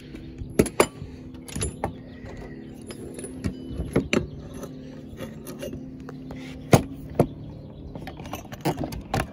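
Hand tools being handled: a torque wrench and socket give scattered sharp metallic clicks and clanks, roughly a dozen irregularly spaced, over a steady low mechanical hum.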